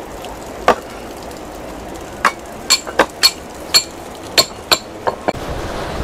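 A series of about ten sharp knocks with a brief ring, irregularly spaced, the last two close together a little past five seconds in.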